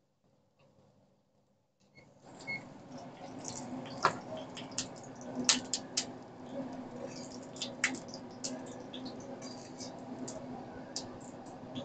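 Potato pancakes frying in hot oil in a pan: a steady sizzle with frequent sharp crackles and pops, starting suddenly about two seconds in.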